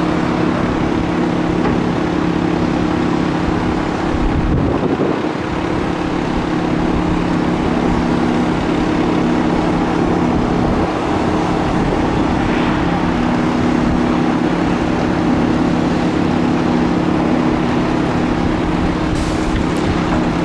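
Steady mechanical drone: an even rush of noise with a constant low hum beneath it, unchanging throughout, with a brief low swell about four seconds in.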